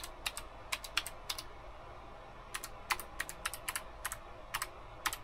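Typing on a computer keyboard: a quick run of key clicks, a pause of about a second, then a second run of clicks, as a Wi-Fi password is entered.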